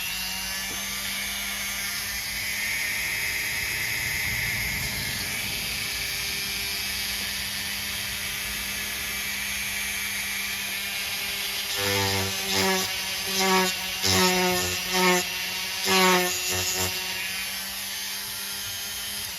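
Dremel rotary tool running steadily with a high whine while sanding down a plastic piece. In the second half the sound surges louder several times as the bit bears on the plastic, and the motor cuts off at the end.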